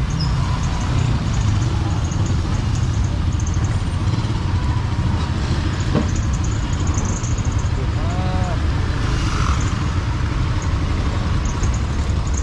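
Busy street-market ambience: a steady hum of passing traffic with scattered voices.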